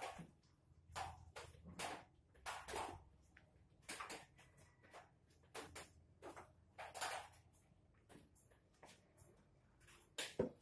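Light kitchen clatter: a string of short, irregular knocks and clinks, about one or two a second, as a pot lid and a plastic water jug are handled at a gas stove.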